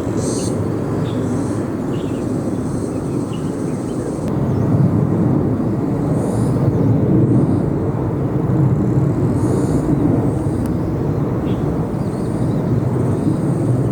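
Jet airliner's engines making a steady low rumble that swells a little about four seconds in, with short high chirps above it.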